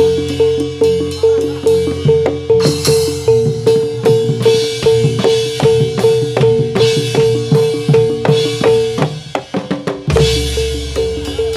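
Jathilan accompaniment music played through a sound system: fast drumming with a repeated high note several times a second and a bright crash every couple of seconds. The pattern breaks off briefly about nine seconds in, then starts up again.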